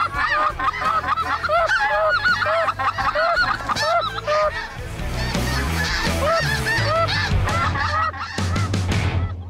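A large flock of snow geese calling overhead: many high, nasal honks overlapping at once, densest in the first half and thinning out after about five seconds.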